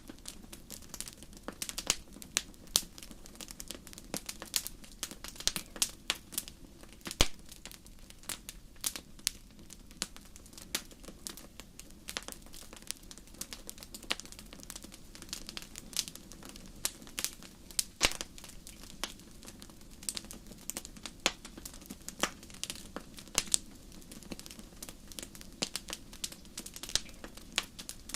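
Wood fire crackling in a fireplace: a dense run of irregular sharp pops and snaps over a soft steady hiss.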